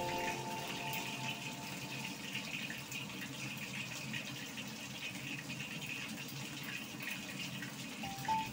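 Pieces of red snapper deep-frying in hot oil in a wok: a steady sizzle with fine crackles throughout.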